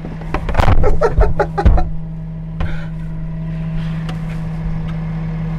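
Garbage truck engine idling steadily, with a burst of clattering knocks in the first two seconds.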